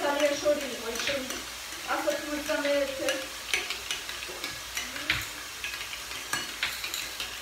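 Knife slicing raw potatoes on a wooden cutting board: irregular knocks of the blade on the board with a wet cutting texture. A pitched, voice-like sound comes and goes in the background.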